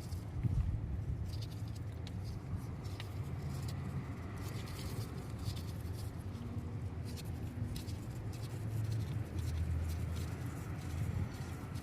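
Faint scattered clicks and light scraping of a wrench working on an A/C hose fitting, over a steady low rumble.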